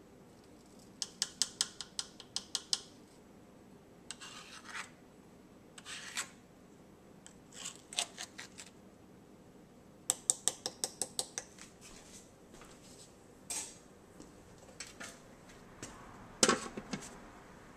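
Metal spoon scraping and tapping against a Ninja slow cooker's pot while sauce is spread over ribs, in quick runs of clicks about five a second with scrapes between them. Near the end the lid is set on the cooker with a ringing clank.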